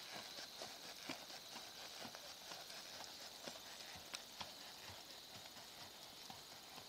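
Faint, muffled hoofbeats of a palomino horse jogging on arena sand, a few soft thuds a second, growing slightly fainter toward the end, over a steady high hiss.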